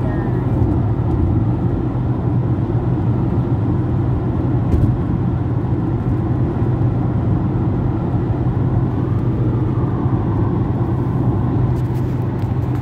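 Car driving at road speed, heard from inside the cabin: a steady low drone of engine and tyres on the road. One brief click about five seconds in.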